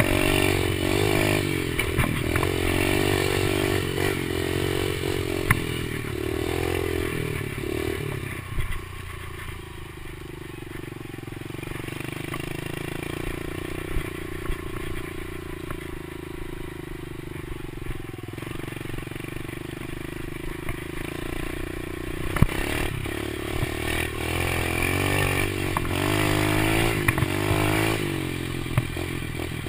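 Kawasaki KLX110 pit bike's small air-cooled four-stroke single-cylinder engine running while ridden, revving up and down, then dropping to a lower, steadier note for about twelve seconds before picking up again. A few sharp knocks come through now and then.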